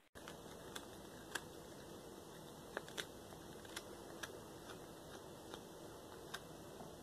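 A cat chewing raw Cornish hen feet: about ten faint, irregular crunches and clicks of small bones over a steady hiss.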